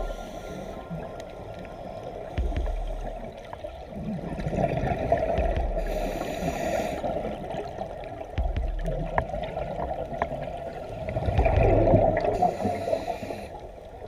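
Underwater gurgle and rush of scuba divers' exhaled air bubbling out of their regulators, swelling in several bursts a few seconds apart.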